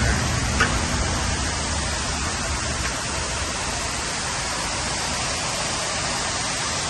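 Steady hiss of water falling through a running cooling tower's fill.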